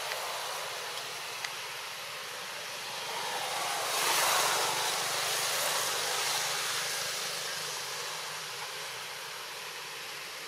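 Steady outdoor noise that swells into a broad whoosh for a few seconds around the middle, rising and then fading, like something passing by or a gust. Two faint clicks come early on.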